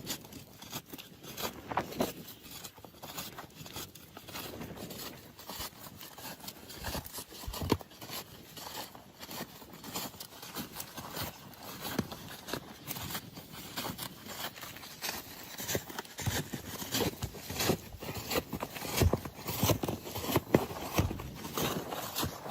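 Irregular scraping, crunching and knocking from hands-on roofing work, with a few louder knocks near the end.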